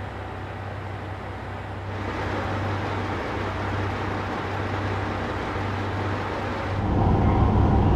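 Diesel railcar of the Anpanman train standing at a platform with its engine idling: a steady low hum with a hiss over it. It grows louder about two seconds in and again near the end.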